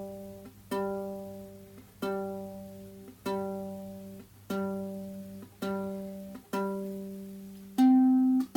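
Enya soprano ukulele strung with Fremont Blackline low-G strings: one low note plucked over and over, about once a second, each note ringing and dying away. Near the end it switches to a louder, higher note, plucked a little faster.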